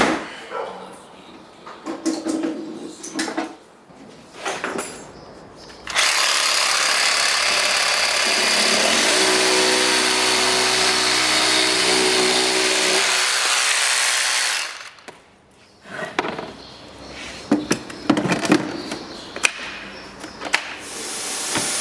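A power tool is run on the workpiece clamped to a wooden toolbox, a loud steady whir for about eight seconds. Before and after it come wooden knocks and the clatter of clamps being handled.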